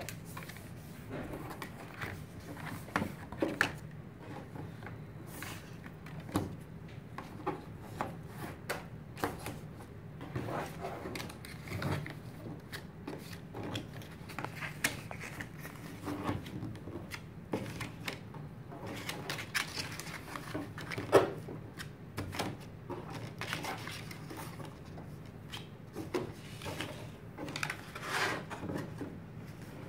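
Paperboard bakery box being folded by hand on a tabletop: scattered crackles, scrapes and taps of the card creasing and sliding, with a sharper tap about two-thirds of the way through, over a steady low hum.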